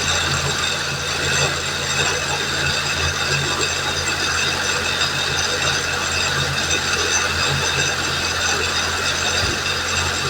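Suzuki Fun's engine idling steadily with the clutch let out, giving a strange mechanical noise from the transmission that goes away when the clutch is held down. The mechanic suspects the clutch, gearbox, half-shaft or CV joint.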